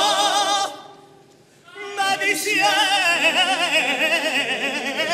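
Male carnival choir singing a pasodoble: a held note breaks off under a second in, and after a short pause a single male voice comes in with a long sung line carrying a wide vibrato.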